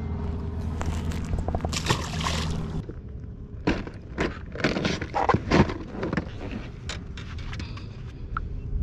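A boat motor hums steadily and cuts off about three seconds in. After it, scattered clicks and knocks from gear being handled in the boat.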